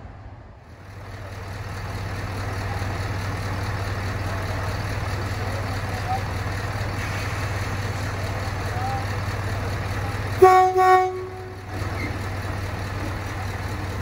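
Sorefame-built diesel shunting locomotive running steadily at idle, sounding its horn in two short toots about ten and a half seconds in.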